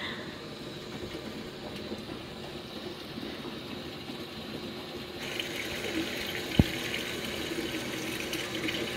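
Washing machine filling its drum with water during a clean washer cycle: a steady rush of incoming water that grows brighter and louder about five seconds in. A single sharp click sounds a little later.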